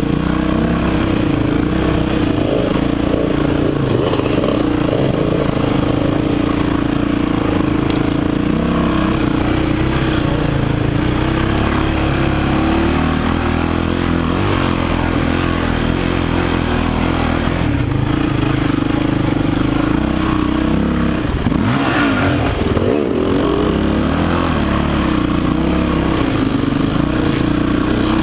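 Off-road motorcycle engine running steadily under load while riding a rough dirt trail, heard from the rider's seat, with the revs shifting briefly about 22 seconds in.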